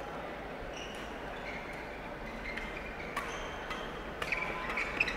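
Badminton rally heard faintly: a few sharp racket strikes on the shuttlecock in the second half, with short high squeaks of shoes on the court floor.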